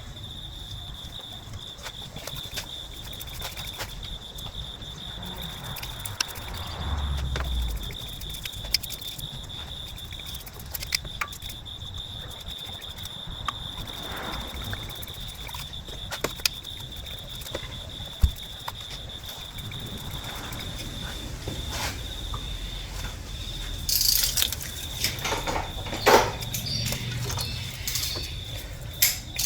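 Scattered small clicks and taps of hands and tools working on the bare engine block and head gasket, with a few louder scraping handling noises near the end, over a steady high-pitched whine.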